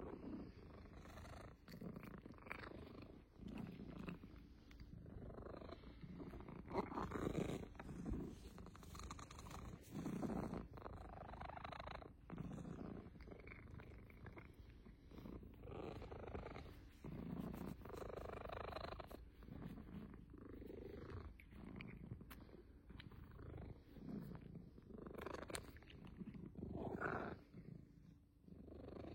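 A cat purring, a low, pulsing buzz that swells and eases every second or two.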